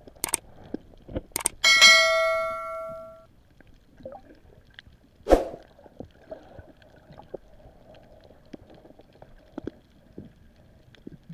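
A small bell struck once, ringing with several overtones and fading over about a second and a half, just after a couple of sharp clicks. A short rush of noise follows a few seconds later, then only faint ticks.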